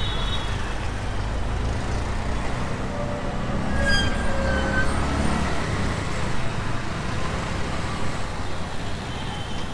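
An auto-rickshaw's small engine runs steadily as it rides through town traffic, heard from inside its open cabin with street traffic noise around it. A short pitched sound, such as another vehicle's horn, comes about four seconds in.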